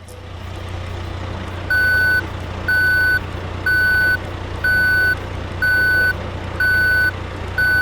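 Engine rumble of a heavy construction vehicle running steadily, with a back-up alarm beeping about once a second. The engine fades in over the first second and the beeping starts a little under two seconds in.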